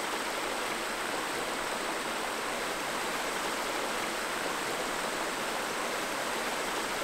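Creek water flowing over rocks: a steady, even rush of running water that holds level throughout.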